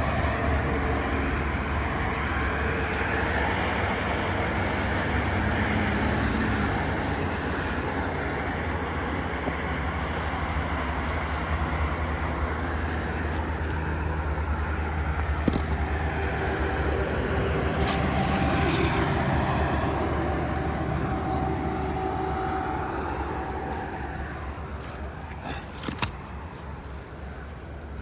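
Steady low engine rumble, like a motor vehicle running, with a few faint sharp clicks. It fades near the end.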